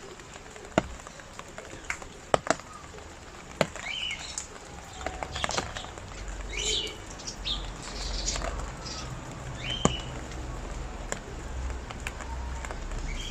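Rain dripping and pattering, with scattered sharp drop clicks and a low rumble, and a few short high chirps, about 4, 6 and 10 seconds in.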